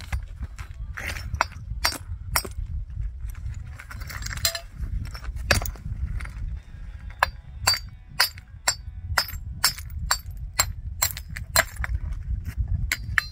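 Repeated sharp clinks and knocks of hard objects striking one another, scattered at first and then coming about every half second in the second half, over a steady low rumble.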